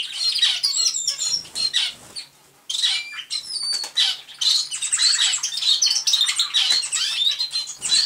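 American Singer canary singing its ordinary free song of quick, varied chirps and trills, the typical American Singer sound rather than roller-style rolls and flutes; the song breaks off briefly a little after two seconds in, then resumes.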